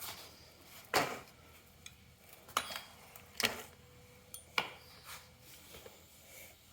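Copper pipe, fittings and valve being handled and set down, giving a few light metallic clinks and knocks about a second apart.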